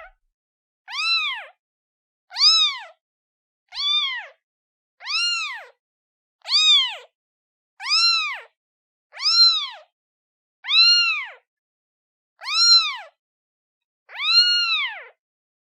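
Newborn kitten meowing again and again, about ten high-pitched meows roughly one and a half seconds apart, each rising then falling in pitch: a kitten calling for its mother.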